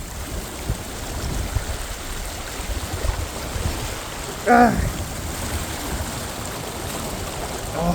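Flooded creek rushing steadily with a strong current. A short vocal sound from the person filming comes about four and a half seconds in.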